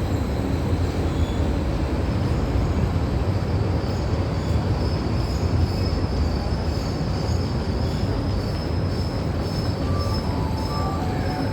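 Train arriving at a station: a steady low rolling rumble, with a thin high wheel squeal setting in about a third of the way through.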